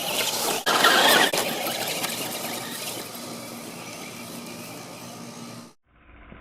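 Electric RC short-course truck (Traxxas Slash) driving on dirt and gravel, a high squealing whine from its electric drive over tyre noise, with a louder burst about a second in. The sound cuts off abruptly shortly before the end.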